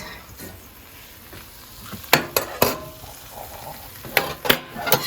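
Tongs clacking against the air fryer basket as pieces of hot chicken are turned, in two quick clusters of about three sharp clicks each. Faint sizzling from the hot chicken can be heard between them.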